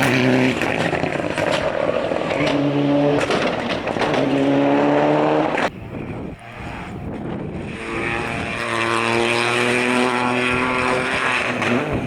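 Rally car engines at full throttle, the revs climbing and breaking off at each gear change. The sound drops away abruptly about six seconds in, then a car is heard accelerating again, its revs rising slowly.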